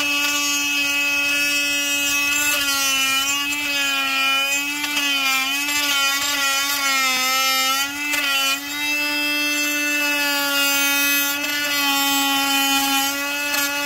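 Small Makita chainsaw cutting out a mortise in a pine post, held one-handed. The motor runs with a steady whine that wavers in pitch as the chain bites in the middle stretch and dips briefly about eight seconds in.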